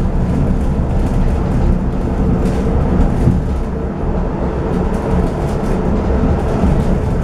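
Running noise inside a DB class 485 S-Bahn electric train under way: a steady low rumble of wheels on the rails, with occasional faint clicks.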